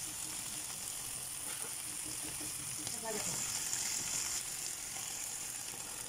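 Sliced bitter gourd (ampalaya) and sardines sizzling in hot oil in a pan. The sizzle grows louder for a second or so around the middle as beaten egg is poured in.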